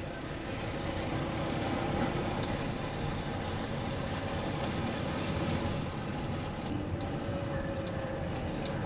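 Steady road and engine noise of a car driving, with a faint steady hum.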